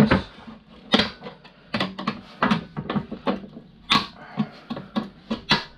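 A flathead screwdriver prying and levering a small brass terminal block out of a fuse board: an irregular run of sharp metal-on-metal and plastic clicks, knocks and short scrapes.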